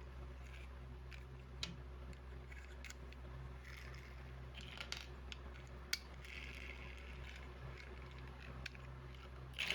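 Plastic toy building bricks being handled: scattered light clicks and short rustles, the sharpest click about six seconds in, over a steady low hum.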